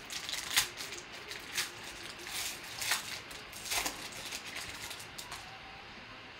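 Foil trading-card pack crinkling as it is torn open and the cards are slid out, in a handful of short crackles over the first four seconds, then only faint handling of the cards.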